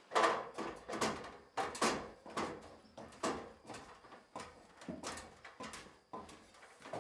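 Work boots stepping up the rungs of an aluminium extension ladder, a steady run of metallic knocks and clanks about two a second, each with a short ringing tail.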